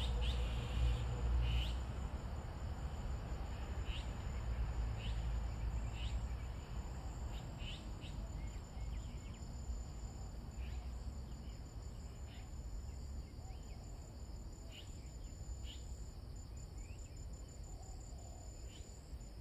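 Insects trilling in a steady, high, fine pulse, with scattered short chirps. Under them a low rumble on the microphone slowly fades.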